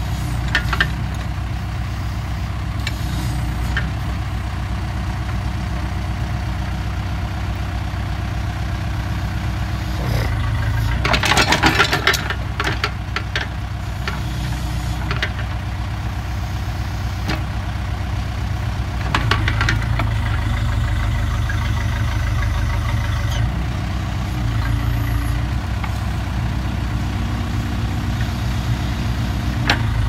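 Backhoe loader's diesel engine running steadily while the rear digging arm is worked. Scattered knocks come through, and a louder noisy burst about eleven seconds in.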